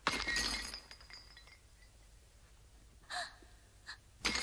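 Iron chains clanking and jangling with a ringing metallic rattle, twice: a loud burst at the start and another about four seconds in, each dying away within about a second.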